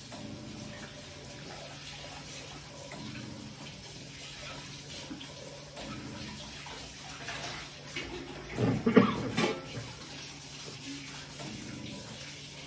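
Water running steadily, as from a tap, with a much louder burst of sound lasting about a second around nine seconds in.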